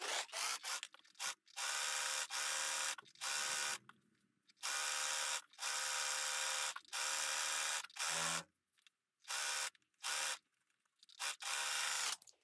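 Brother 4234D overlocker stitching and trimming a seam in jersey fabric, run in short spurts that start and stop several times, each run a steady motor hum.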